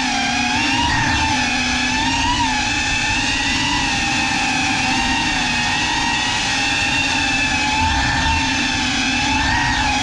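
GEPRC CineLog35 cinewhoop in flight, its brushless motors and ducted propellers whining steadily, the pitch wavering up and down with the throttle.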